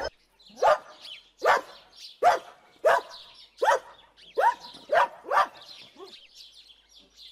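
A dog barking, about eight barks in a row at an even pace, with faint birdsong behind.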